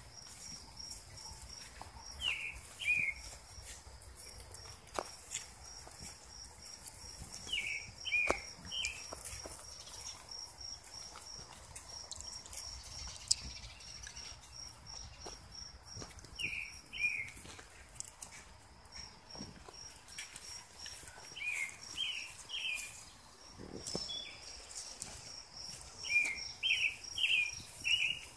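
Bird chirps, short and high, in groups of two to four every few seconds, over a steady, fast-pulsing insect trill.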